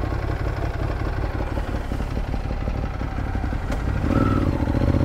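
Ducati Monster 821's twin-cylinder engine with an SC-Project exhaust running at low revs, then given more throttle and getting louder about four seconds in as the bike pulls away.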